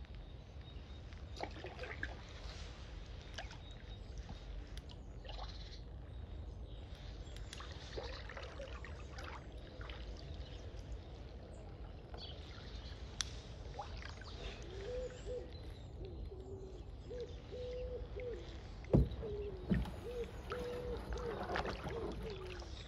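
Kayak paddled slowly through calm water: paddle drips, trickles and small splashes, with light knocks. In the second half a bird repeats low cooing notes in a stepped rhythm, and about two-thirds of the way in there is one sharp, loud knock, likely the paddle striking the hull.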